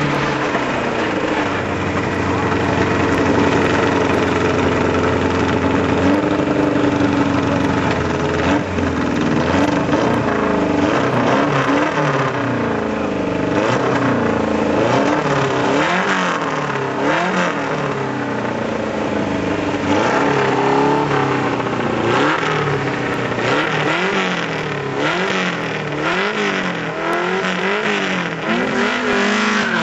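Race car engines. One engine runs steadily for the first several seconds. Then two cars held at a drag-race start line are revved over and over, the pitch climbing and dropping about once every second or two, while they wait for the start signal.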